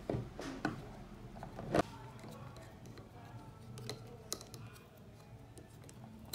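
Plastic clamps and mounts being handled and pushed onto the tubes of a quadcopter frame: a series of sharp plastic clicks and taps, the loudest a little under two seconds in, with quicker small ticks near the end.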